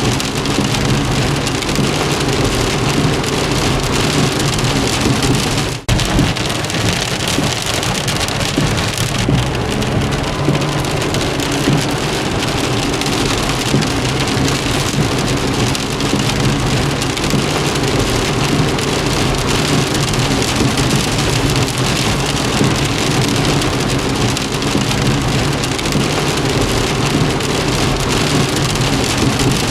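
Steady heavy rain falling on a car, heard from inside, with a low steady rumble underneath. There is a brief break in the sound about six seconds in.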